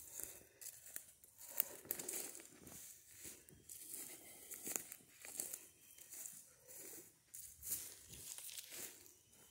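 Footsteps crunching and rustling through dry leaf litter and low undergrowth on a forest floor, a faint irregular crackle with each step.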